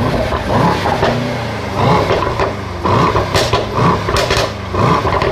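Mercedes-AMG GT 4-Door Coupe's engine and exhaust revved in short blips while the car stands: about five revs, each rising in pitch and dropping back, with sharp pops and crackles from the exhaust in the middle.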